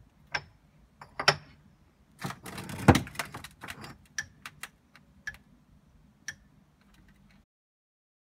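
Concrete paving blocks being set down one at a time on a wooden platform and on each other: a string of sharp clacks and knocks, with a louder cluster about three seconds in and lighter taps after that.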